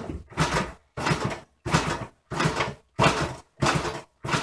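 A Honda XR75's single-cylinder four-stroke engine being kick-started over and over, about seven quick kicks in a steady rhythm, turning over without firing. The owner suspects an air block keeping fuel from reaching the carburettor.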